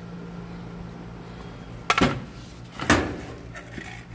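Two knocks about a second apart, a metal tool cabinet or drawer being shut, over a steady low hum.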